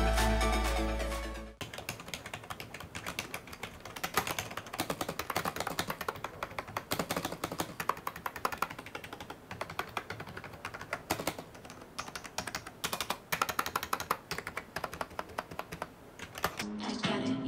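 Typing on a Monstar Gear GK104DJ membrane gaming keyboard: a fast, uneven run of key clacks. Electronic music fades out about a second and a half in, just before the typing, and music comes back in near the end.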